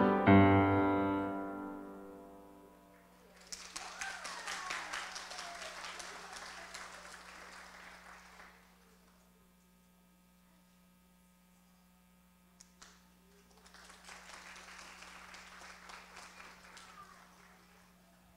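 Piano music ends, its last chord fading over the first two seconds. Then an audience applauds for about five seconds, falls quiet, and applauds again, more softly, for about four seconds.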